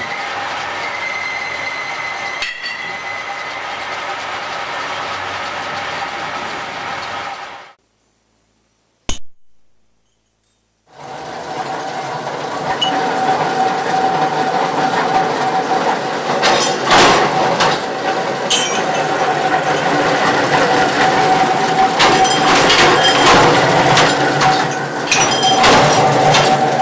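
A metal lathe runs with a steady mechanical hum, then cuts off abruptly about eight seconds in. After a short silence with a single click, workshop machinery starts up louder, with a steady whine and repeated sharp metallic clinks and knocks.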